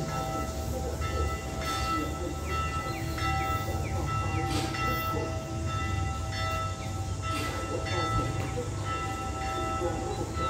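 Church bell tolling slowly, struck about every three seconds, its ringing hum hanging on between strokes, over a low rumble from the approaching train.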